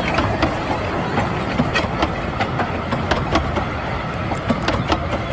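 Passenger coaches of a 15-inch-gauge railway rolling past: a steady rumble of wheels on rails with irregular clicks and clacks as the wheels cross the rail joints.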